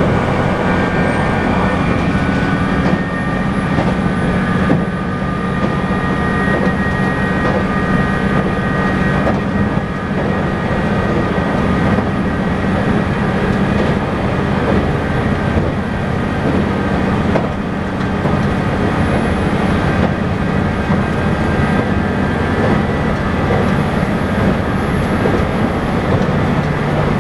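Cabin running noise of a JR Shikoku N2000 series diesel express railcar at speed: a steady drone of the engines and wheels on the rails, with a low hum underneath.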